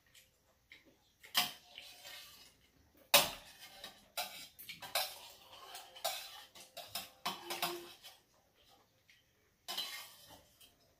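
Metal chopsticks clinking and scraping against a stainless steel bowl and tray in irregular clatters, the sharpest a little after three seconds in.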